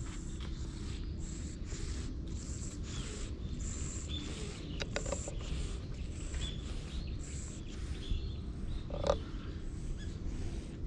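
Tabby-and-white cat purring close to the microphone while a hand strokes its fur, with a soft rustle at each stroke. A brief, louder sound comes about nine seconds in.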